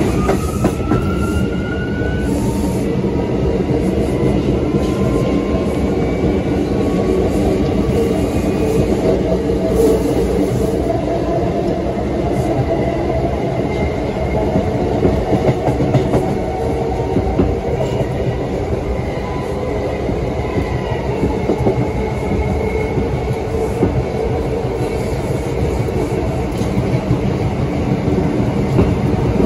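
Bombardier R179 subway car running on its MITRAC AC traction propulsion: the motor whine rises in pitch over the first couple of seconds, then fainter whining tones come and go over steady wheel-on-rail rumble with clickety-clack.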